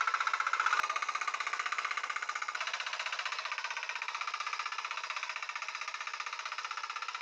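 Walk-behind mini tiller's small engine running steadily with a fast, even pulse while it pulls a plough through the soil. A single sharp click about a second in.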